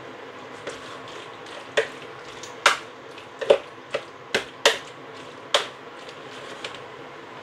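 Plastic spoon clacking and scraping against a plastic colander as freshly drained bow-tie pasta is tossed: a string of about eight sharp clacks over a steady background hum.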